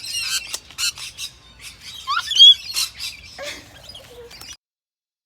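Many aviary birds calling together, a dense mix of short high chirps with one louder call about halfway through. The sound cuts off abruptly about a second before the end.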